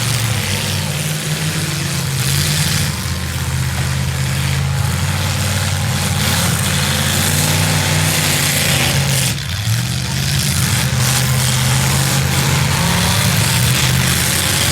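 V8 demolition derby car engines running loudly, the pitch rising and falling as they rev, with a brief dip in loudness about nine seconds in.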